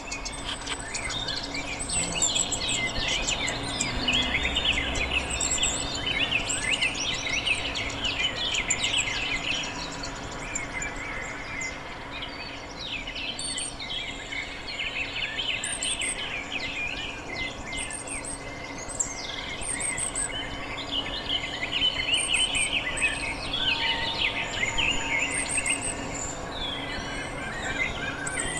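Chorus of many birds chirping and twittering at once, with short, very high calls coming again and again over it.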